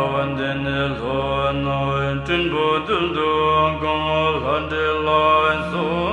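A voice chanting a Tibetan Buddhist prayer to Guru Rinpoche in a melodic recitation, phrase after phrase, over a steady low drone.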